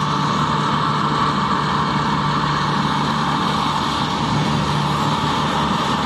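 John Deere farm tractor's diesel engine running steadily as the tractor drives along a road.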